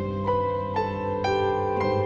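Slow background music: a melody of sustained notes, a new one about every half second, over held low bass notes.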